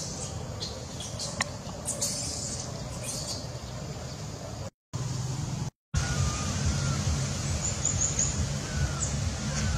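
Outdoor ambience with a few sharp clicks, broken twice by short gaps. After the gaps comes a steadier low hum, with short falling chirps and a few high chirps on top.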